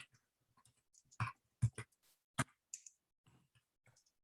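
Scattered keystrokes on a computer keyboard: a few separate clicks about a second in, then a couple more, with gaps between them.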